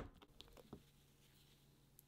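A few faint crisp ticks from a knife and a freshly cut slice of yellow bell pepper in the first second. Otherwise near silence.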